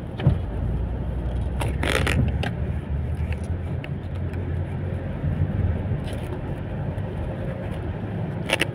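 Steady low rumble of a car heard from inside the cabin, with a few brief scrapes and knocks.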